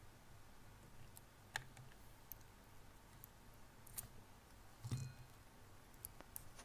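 Faint, scattered clicks and light taps of a small screwdriver and parts against a hard drive's casing as it is taken apart, with a soft knock about five seconds in.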